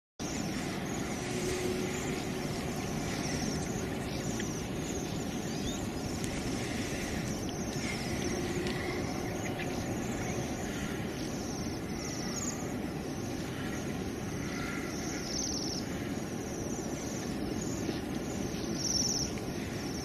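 Outdoor winter ambience: a steady low background rumble with faint, short bird calls now and then.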